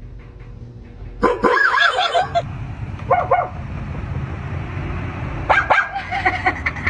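A dog barking and yipping in three bursts: about a second in, around three seconds, and again from about five and a half seconds. The calls slide up and down in pitch. A low steady rumble runs under them in the middle stretch.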